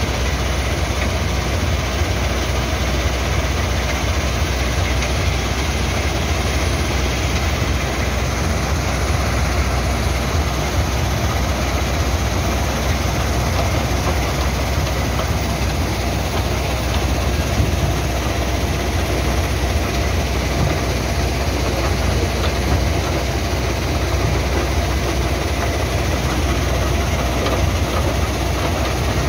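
Wirtgen crusher plant running: a loud, steady machinery noise with a deep hum underneath.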